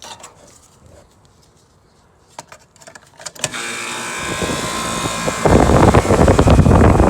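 Outdoor AC condensing unit switching on about three and a half seconds in with a steady hum, then its condenser fan motor starting about two seconds later on a newly fitted capacitor, its airflow rushing loudly. The fan had not run because the old capacitor had failed.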